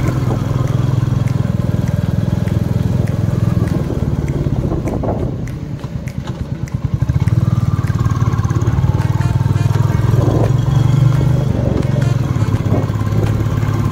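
Royal Enfield motorcycle engine running under way. About five seconds in it drops to a slower beat with its separate firing pulses audible, then picks up again.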